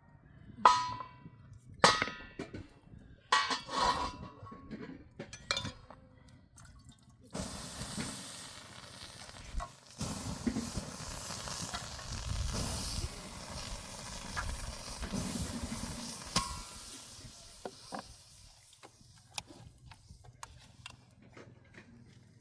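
A few sharp clinks of dishware or metal in the first six seconds, then about nine seconds of steady rushing, splashing noise like water being poured, ending with another clink.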